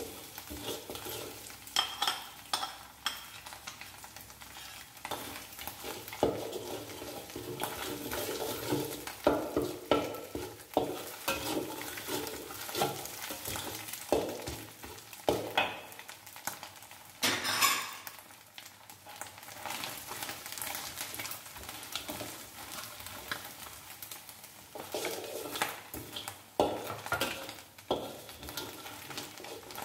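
Metal spatula scraping and knocking around a steel wok in irregular strokes, over the sizzle of salted egg yolk, butter, dried prawns and garlic stir-frying as the yolk is cooked until it froths.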